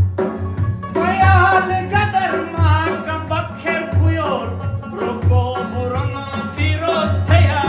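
Male voice singing a folk song, coming in about a second in, over a strummed acoustic guitar and a steady low hand-drum beat.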